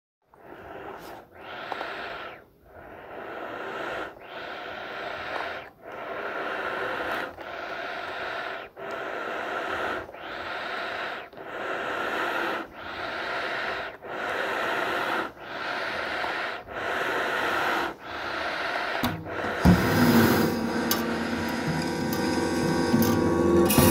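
Film soundtrack sound design: a breath-like hiss that swells and cuts off sharply in a steady rhythm, about one swell every second and a half. About nineteen seconds in, music with strong low tones comes in and takes over.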